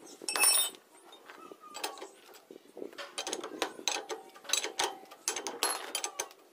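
A steel spanner clinking and clicking on the check nut of a tractor's front wheel hub as the nut is turned down after the hub and bearings are refitted: one loud ringing clink just after the start, then a run of quicker metal clicks, two or three a second.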